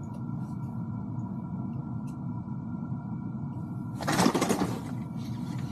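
A steady low mechanical hum, with a short burst of rustling about four seconds in as the jigging rod is lifted.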